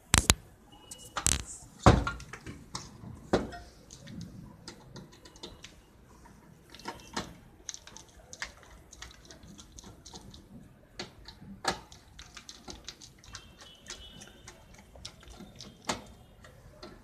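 Sharp knocks of a sheet-metal PC power-supply case being handled and set down, loudest in the first few seconds, then light, irregular clicking and scraping as a screwdriver backs screws out of the case.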